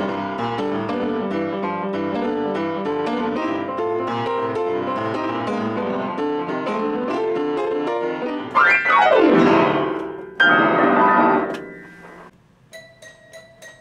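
Wurlitzer upright piano played, a busy run of chords and notes, then two loud sweeping glissandos across the keys from about eight and a half seconds in. The piece stops about twelve seconds in.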